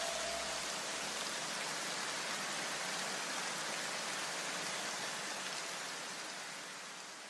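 An even hiss with no tones or rhythm. The last notes of the background music ring out in the first second or so, and the hiss fades away near the end.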